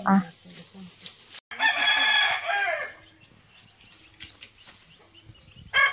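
A rooster crowing once, about a second and a half in, for just over a second, ending on a falling note. Faint rustles and ticks around it.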